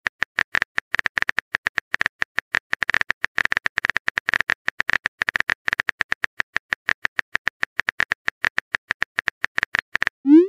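Phone-keyboard typing sound effect: rapid, even clicks, about eight a second, signalling that the next message is being typed. The clicks stop near the end and are followed by a short rising pop.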